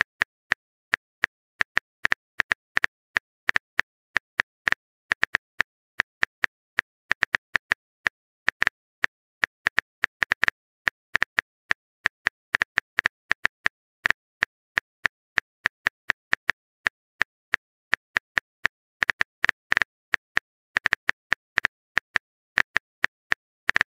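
Typing sound effect of a texting-story chat app: a long run of short keyboard-tap clicks, several a second and irregularly spaced, as a message is typed out.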